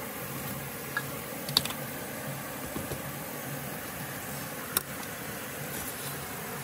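A few sharp clicks and taps from eating with a bamboo skewer and spoon, the loudest about one and a half seconds in and another near five seconds, over a steady low background hum.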